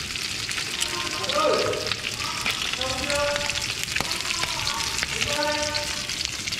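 Pieces of fish shallow-frying in hot oil in a pan: a steady crackling sizzle with scattered sharp pops.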